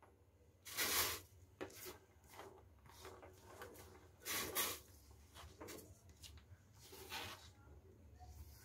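Cut moringa drumstick pieces being pushed by hand across a plastic chopping board into a pot of water, heard as a series of soft, short rubbing swishes. The strongest come about a second in and about halfway through.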